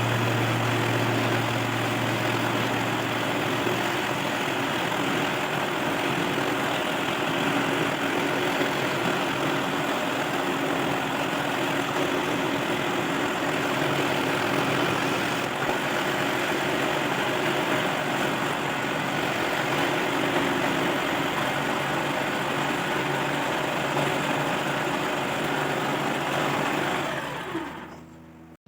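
Electric jigsaw motor in a homemade jigsaw table running steadily, its blade driven up and down, then stopping near the end.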